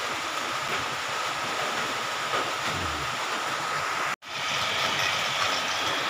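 Steady hiss of pressurised gas rushing through a chest freezer's refrigerant lines during a leak test of the repaired piping, broken by a brief dropout about four seconds in.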